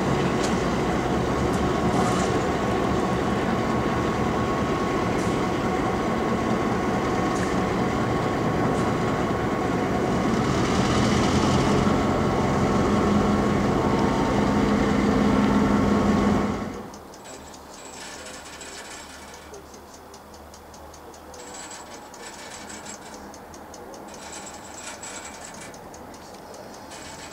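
Streamlined GM diesel-electric locomotive's engine running at close range, steady and loud, swelling a little about ten seconds in. It cuts off suddenly about seventeen seconds in, giving way to a quieter cab interior with a fast, even ticking.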